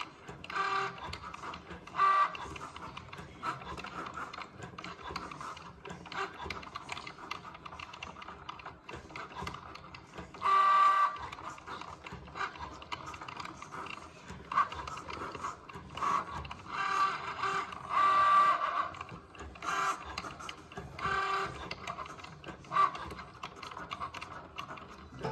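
Cricut Joy cutting machine cutting Smart Vinyl: its motors whir in short, pitched bursts, some lasting about a second, as the blade carriage moves back and forth.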